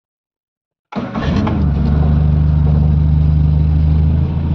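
Morris Minor 1098 cc A-series four-cylinder engine running steadily after being static-timed to 3 degrees before top dead centre. It comes in suddenly about a second in and dips a little in level near the end.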